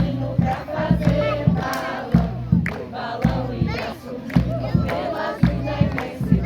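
A crowd singing together, with a steady low beat about three times a second.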